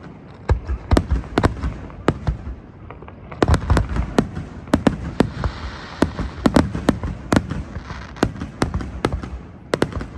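Aerial fireworks bursting overhead: many sharp bangs in quick succession, coming much thicker from about three seconds in.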